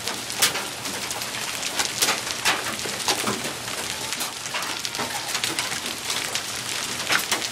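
Golf-ball-size hail falling hard: a dense, steady hiss of hail and rain with many sharp cracks and clicks as individual hailstones strike nearby surfaces, a few much louder than the rest.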